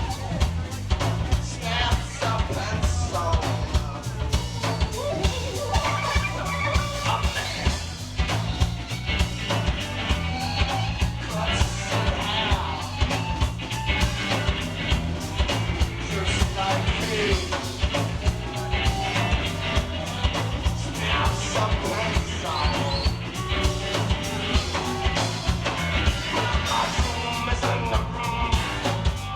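Live rock band playing an instrumental passage: a fast, steady drum beat under a stepping bass line, with melodic lines on top.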